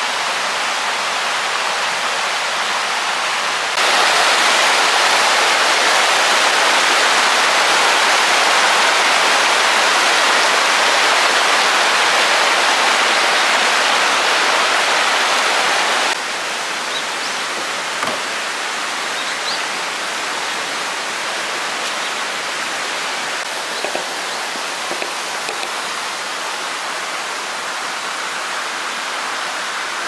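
Steady rush of water with no pitch or rhythm to it; it jumps louder about four seconds in and drops back about twelve seconds later, and a few faint ticks come through in the later part.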